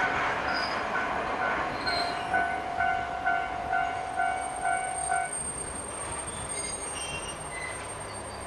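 Japanese railway level-crossing warning bell ringing its repeated 'kan-kan' tone about twice a second, over the noise of a passing diesel railcar that fades away. The bell stops about five seconds in.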